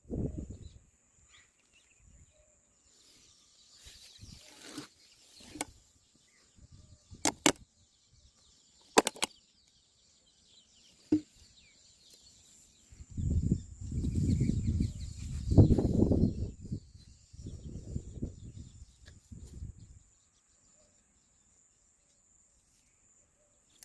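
Gusts of wind buffeting the microphone, heaviest in the second half, with a few sharp clicks and a steady high insect-like chirr underneath.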